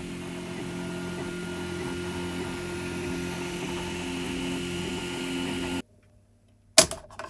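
Original Prusa i3 3D printer running mid-print: a steady whirr of its fans and stepper motors, with several steady tones over a hiss. It cuts off suddenly about six seconds in, and a single sharp knock follows near the end.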